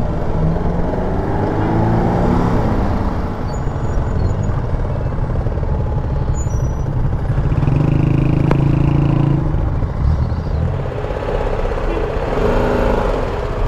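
Motorcycle ridden through city traffic: steady wind and road rumble with engine sound, and nearby vehicle engines rising and falling in pitch as they pass.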